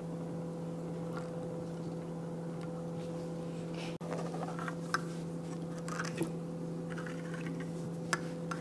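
A low steady hum with a fainter higher tone above it, with a few light clicks and taps about halfway through and near the end.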